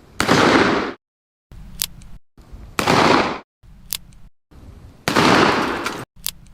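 Colt M1873 Single Action Army revolver: three shots about two and a half seconds apart, each preceded by a sharp metallic click of the hammer being cocked. Each shot rings out for under a second and is cut off abruptly into silence.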